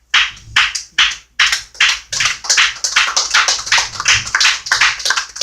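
Hand clapping in a steady rhythm, about two or three claps a second at first and then faster and denser from about a second and a half in, as more clapping joins.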